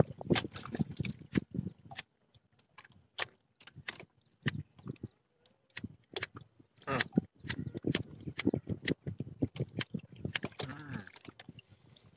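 Irregular sharp clicks of a cigarette lighter being struck again and again to light a cigarette, with a brief low hum near the end.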